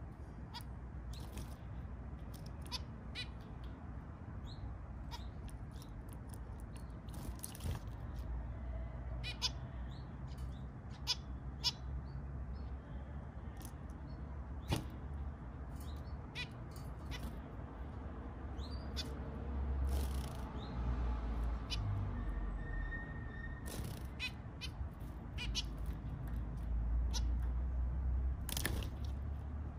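Caged zebra finches giving short calls many times at irregular intervals, over a low steady rumble.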